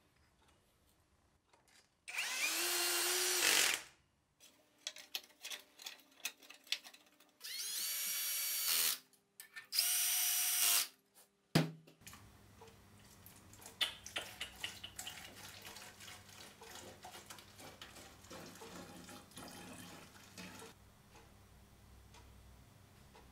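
A cordless drill runs in three short bursts of a second or two each, its motor spinning up to a steady whine and winding down. Then liquid trickles and gurgles as fuel and then motor oil are poured into a plastic bottle to mix two-stroke fuel.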